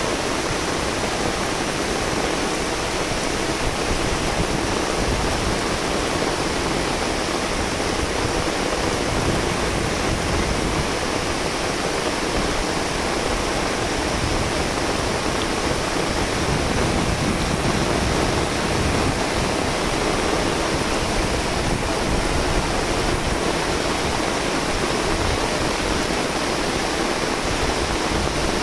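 Rain falling steadily: an even rushing hiss with no breaks.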